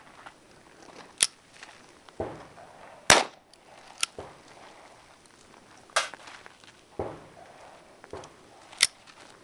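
Ruger Mk I .22LR pistol firing single shots, a handful of sharp cracks a second or more apart, the loudest about three seconds in. Weaker knocks between them fit the bolt being racked and dropped to single-load each round.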